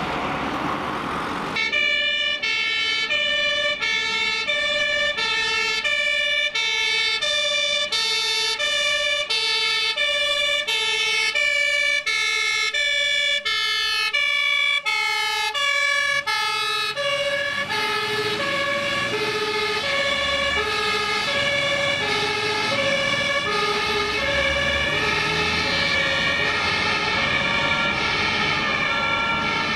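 German two-tone emergency-vehicle siren (Martinshorn) alternating a low and a high tone, about two-thirds of a second each, starting about two seconds in. From a little past halfway the horn sounds along with more engine and road noise.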